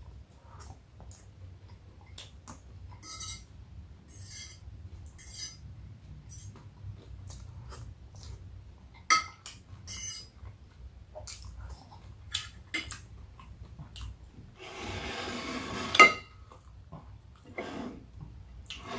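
Close-miked eating: scattered chewing and mouth clicks with light clinks of cutlery and dishes. About three-quarters of the way through, a second-long shuffling noise ends in a sharp clink, the loudest sound.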